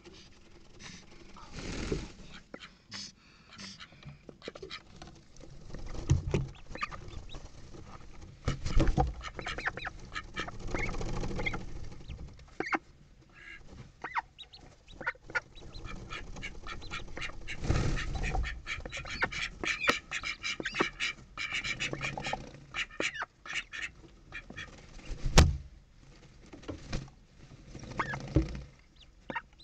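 Domestic mother duck and ducklings calling, with many short clicks and knocks throughout and louder bursts around nine, eighteen and twenty-five seconds in.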